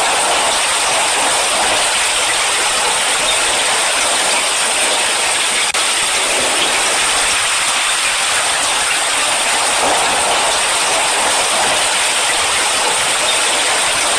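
Steady heavy rain: a loud, even hiss that keeps on without letup.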